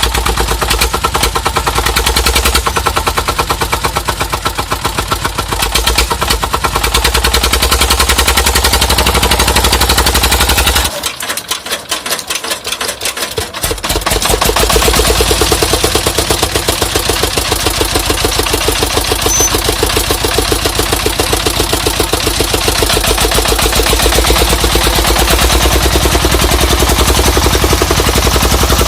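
Dong Feng diesel engine on a truck running with a loud, rapid, machine-gun-like exhaust beat. About eleven seconds in it falls quieter for roughly three seconds, then comes back up.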